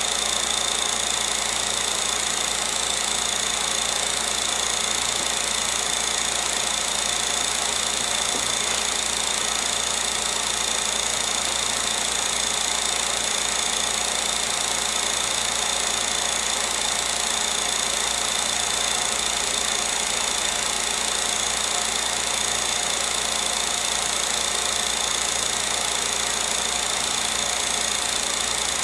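16 mm film projector running: a steady mechanical whirring clatter with a constant high whine.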